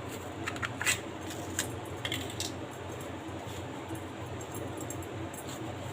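A few sharp, light clicks and taps as a tub of ice cream is opened and handled, all in the first two and a half seconds, then only a low steady hum.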